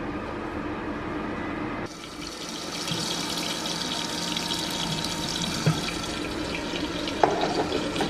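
Sliced onions and carrots sizzling in olive oil in the heated bowl of a Magimix Cook Expert on its browning programme: a steady hiss that comes in suddenly about two seconds in, after a lower hum. A short clatter near the end.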